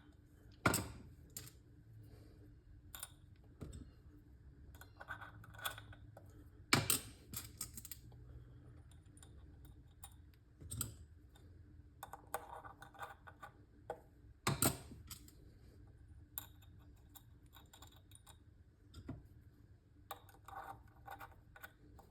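Small clicks and taps of hand tools and plastic shift knob parts being handled while the install is finished, with three sharper knocks spread through.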